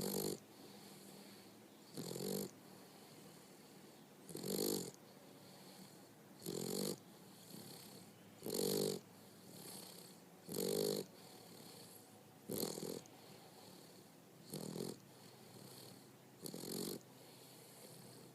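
Boxer dog snoring, a loud rasping snore about every two seconds with quieter breaths between.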